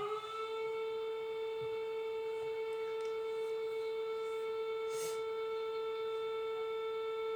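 Emergency alert tone: one steady, buzzy, siren-like tone with many overtones, which slides up into pitch at the start and then holds level.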